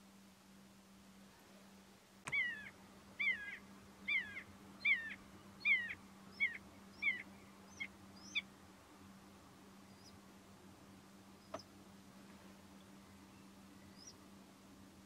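Common buzzard giving a series of about nine short, clear mewing calls, each sliding down in pitch, starting about two seconds in and growing shorter and fainter.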